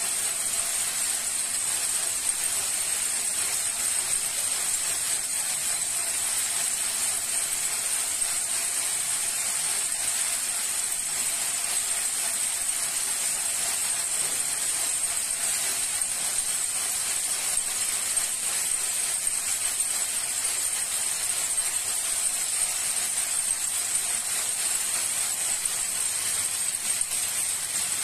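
Bobbin-carrier braiding machine running, its carriers circling and weaving thread and wire into a cord: a steady, high-pitched hiss-like whir at an even level.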